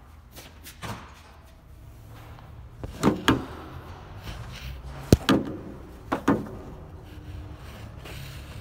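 A series of separate knocks and clunks, about seven in all, the sharpest about five seconds in, over a low steady background hum.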